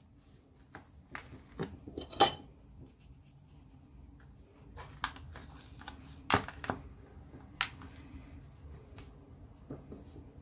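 Raw pork ribs being rubbed with dry seasoning and moved around in a white dish: irregular knocks and clicks of the ribs and fingers against the dish, the loudest about two seconds in and again about six seconds in.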